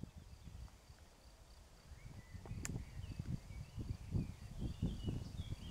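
Wind gusting on the microphone, with faint bird chirps and a faint steady high insect trill. One faint click about two and a half seconds in.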